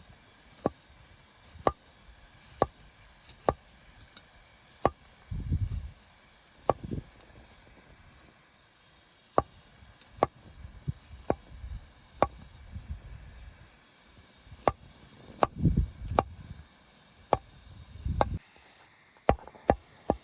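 Knife chopping on a cutting board: single sharp strokes at an uneven pace, roughly one a second, with a few dull low thumps among them.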